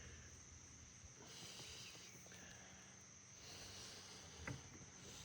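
Near silence outdoors: faint steady high-pitched insect chirring, with one soft click about four and a half seconds in.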